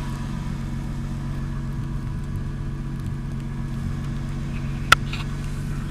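Ford Mustang engine idling steadily while it warms up from cold. A single sharp click comes about five seconds in.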